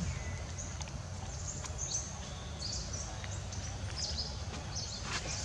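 Outdoor forest ambience: scattered short, high bird chirps over a steady low rumble.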